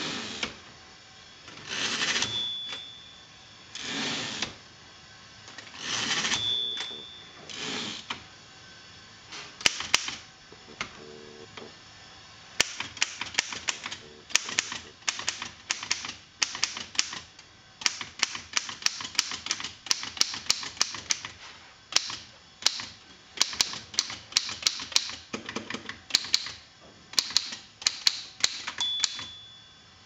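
Antique Remington manual typewriter: for the first several seconds a few longer sliding strokes about two seconds apart, some followed by a short bell ring, then a fast run of sharp keystroke clacks, several a second, as the typebars strike the platen, with another short bell ring near the end.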